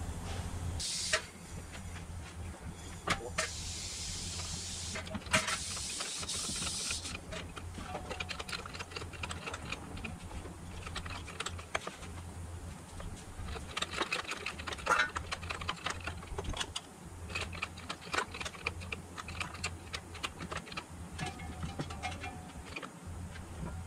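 Scattered clicks, clinks and knocks of hand work on a transmission under a lifted vehicle, with a steady hiss of air lasting a few seconds starting about three seconds in.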